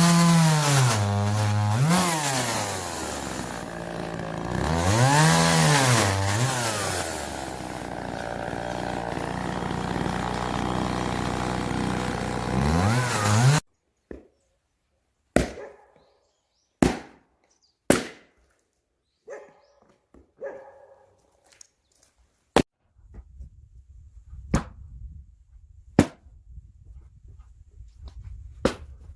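A two-stroke chainsaw running and cutting firewood, its engine speed rising and falling again and again, stops abruptly about halfway through. Then comes a series of about nine sharp, separate knocks one to two seconds apart: axe blows splitting firewood.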